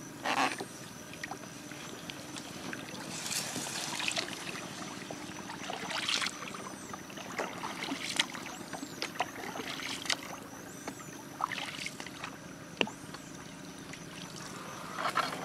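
Paddle strokes in the water from a small wooden canoe, splashing every one to two seconds at an uneven pace, with water trickling in between.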